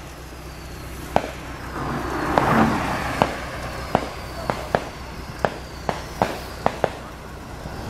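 Pavement maintenance truck running with a low steady hum while steaming hot asphalt mix is discharged onto the road. A rush of noise swells about two seconds in, and sharp cracks come about once a second throughout.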